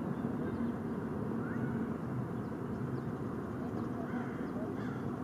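Steady outdoor background noise, a low even rumble with faint distant voices and a few short high chirps.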